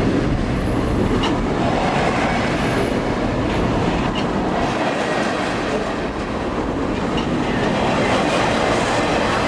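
Double-stack container well cars of a freight train rolling past close by: a loud, steady rumble and clatter of steel wheels on rail, with a couple of brief high-pitched wheel squeals in the first few seconds.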